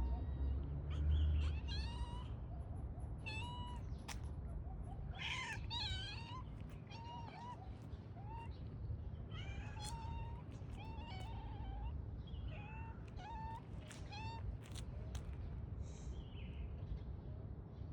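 Cat meowing repeatedly: a long series of short, high-pitched mews, over a low background rumble.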